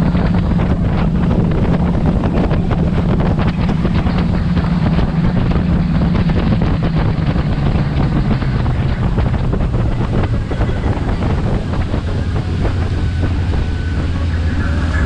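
Speedboat engine running at speed with wind buffeting the microphone and water rushing past the hull. About halfway through, the engine note drops steadily as the boat throttles back and slows down.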